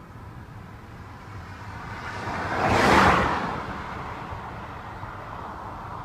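Steady road rumble of a moving car, with another vehicle passing close by: a whoosh that swells to a peak about three seconds in and fades away.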